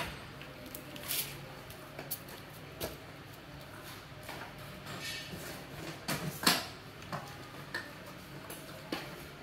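Scattered light knocks and rustles of packaging being handled, with a sharper cluster of knocks about two-thirds of the way through.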